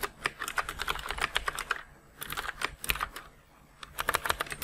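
Computer keyboard being typed on in quick runs of keystrokes, with two short pauses.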